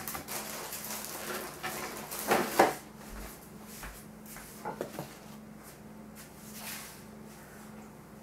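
Kitchen cookware being handled: a clatter of knocks and clunks about two and a half seconds in, then a few lighter clicks, over a faint steady low hum.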